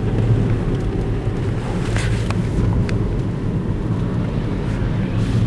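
Steady low rumble of a car's engine and tyre noise heard from inside the cabin while driving, with a couple of faint clicks about two seconds in.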